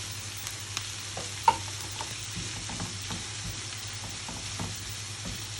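Onions, peppers and freshly added diced tomatoes frying in oil in a pan, sizzling steadily as they are stirred, with scattered light clicks and one sharper knock about a second and a half in.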